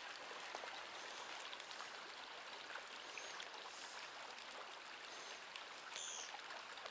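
Water of a small mountain trout stream running over its bed, a steady even hiss. Two brief high chirps come through it, about three and six seconds in.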